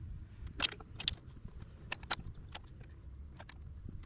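A small wrench clicking and ticking on the 10 mm bolts that hold a drum-brake wheel cylinder to its backing plate as they are run in and tightened. There are several sharp, irregular metal ticks over a low steady rumble.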